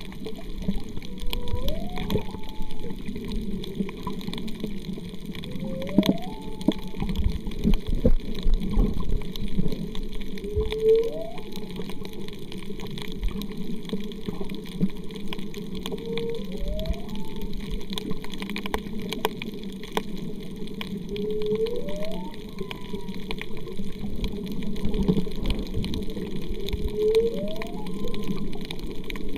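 Humpback whale song heard underwater: a rising whoop repeated about every five seconds, over a steady rush of water noise.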